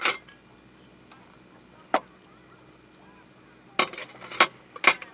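Short clinks and knocks of tableware on a camp table: a metal cup and eating utensils being handled. There are five, one at the start, one about two seconds in, and three close together near the end.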